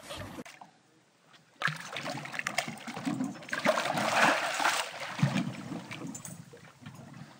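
Hooked Pacific halibut thrashing at the surface beside the boat, splashing water. The splashing begins about a second and a half in and is heaviest around four seconds in.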